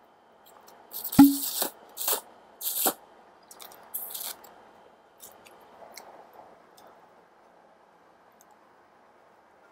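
Instant noodles slurped from a cup in several short, hissing bursts over the first few seconds, with a sharp knock about a second in, then quieter chewing.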